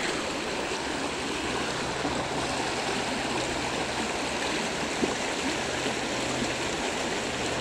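Creek water running high, a steady rushing flow.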